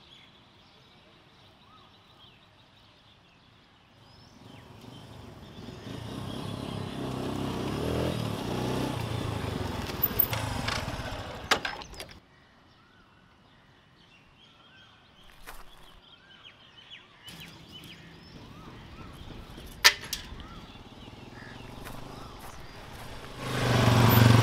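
Motorcycle engine running, growing louder over several seconds, then cutting off suddenly about halfway. Then birds chirping with a few sharp clicks, and near the end a motorcycle engine comes in loudly.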